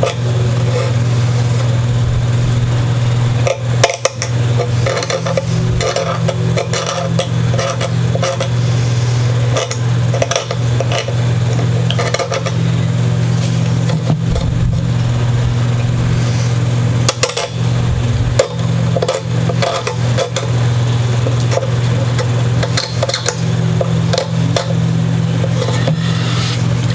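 Blade scraping old glue out of a guitar's nut slot: irregular short scratchy strokes, over a steady low hum.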